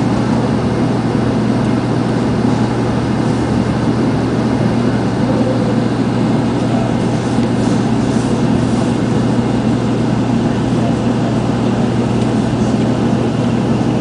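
Steady running noise of a 0 series Shinkansen train under way, heard inside the passenger cabin: an even rumble over a constant low hum.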